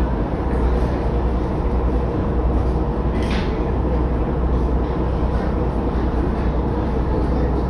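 Glass-bottom tour boat's engine running with a steady low drone, heard from inside the hull, with one brief sharp sound about three seconds in.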